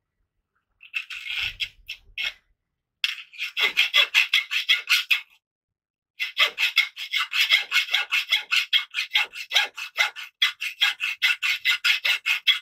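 Hacksaw cutting a flat metal bar clamped in a bench vise: quick, even rasping strokes of the blade. There are two short runs of sawing with brief pauses in the first half, then steady continuous sawing from about six seconds in.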